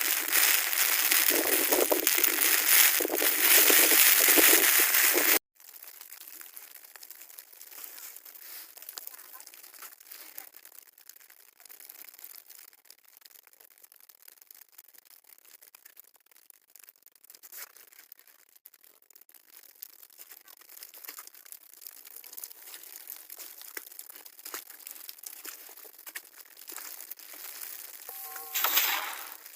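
Loud rushing of storm wind and sleet on the microphone, cutting off abruptly about five seconds in to a much quieter, steady crackling and rustling, with a brief louder burst near the end.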